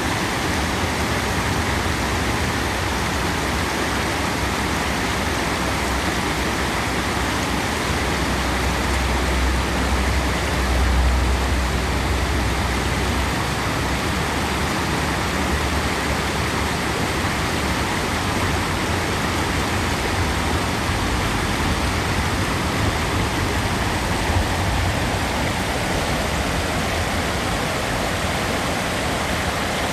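River water rushing steadily, a continuous even noise with a deep low rumble that swells for a few seconds about ten seconds in.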